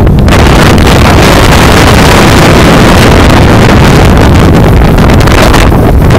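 Loud, steady wind noise on the microphone of a moving motor scooter, with scooter engines running underneath.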